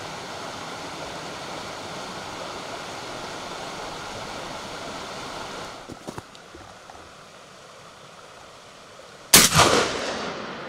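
A steady rushing hiss, then quieter; about nine seconds in, a single loud gunshot from a hunter's gun, fired at a wild boar, rings out and rolls away in an echo lasting over a second.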